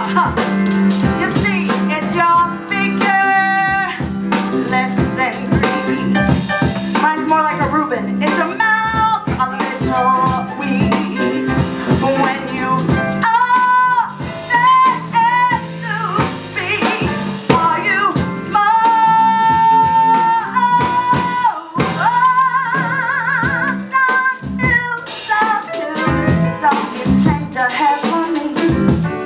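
Live band music: a lead melody of long held notes with a wavering vibrato, over a steady accompaniment.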